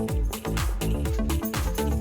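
Background music: upbeat electronic dance track with a steady, fast beat.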